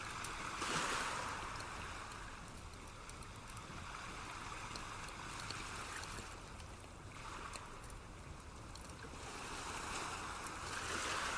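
Relaxation-track water sound: a steady rushing noise that swells and eases every few seconds, with faint scattered ticks on top.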